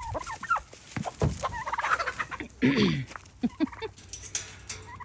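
A turkey gobbling about midway, a fast rattling call, with more short calls from chickens and turkeys around it.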